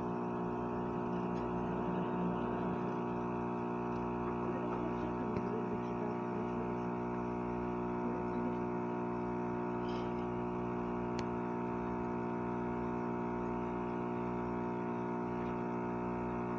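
Aquarium pump motor humming steadily, a constant hum made of many even tones.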